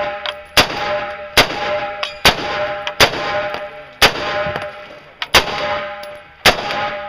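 Rifle fired in single shots at a steady pace, seven shots about a second apart, each followed by the ring of a struck steel target.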